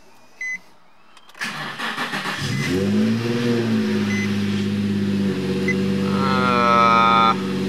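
Nissan 350Z's 3.5-litre V6 being started: a short crank, then the engine catches about two seconds in, flares up briefly and settles into a steady idle. A few short high beeps sound over it.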